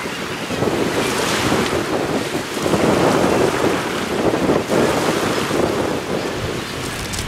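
Strong wind buffeting the microphone over small waves washing onto a pebble beach, swelling and easing in gusts.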